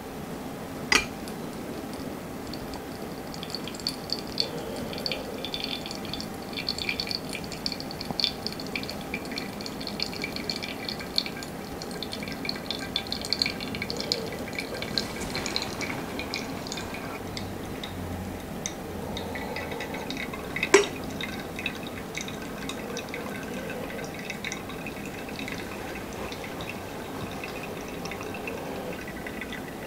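Hot water poured from a kettle onto coffee grounds in a Hario ceramic pour-over dripper: a trickling, splashing stream for roughly the first half, then coffee dripping through into the glass server. A sharp knock about a second in and a louder one about 21 seconds in.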